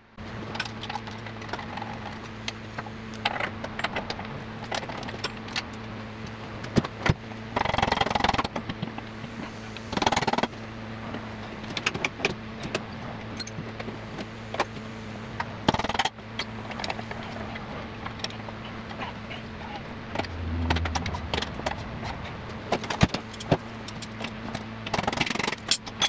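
Metal clinks, taps and rattles of hand tools and the wheel axle being worked out of an Indian FTR1200 motorcycle's wheel, with a few longer scrapes. The axle is bone dry and binds, so a quick job turns into a long struggle.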